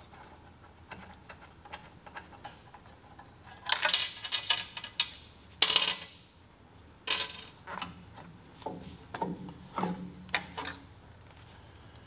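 Light metallic clicks, clinks and rattles as wing nuts are unscrewed and set down on the steel plate of a Wood-Mizer LT-35 sawmill's saw head, and its metal felt-wiper cover is lifted off the guide rail. The loudest clinks come about four seconds in and again near six seconds, with smaller ones later.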